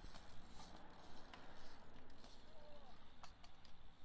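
Faint outdoor background with scattered light clicks and a short, curving chirp a little past halfway.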